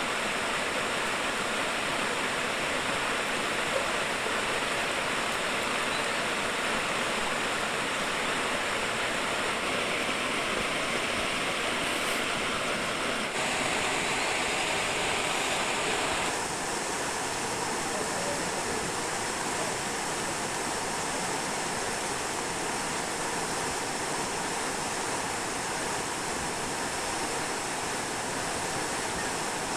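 Steady rush of flowing river water, its tone shifting slightly about halfway through.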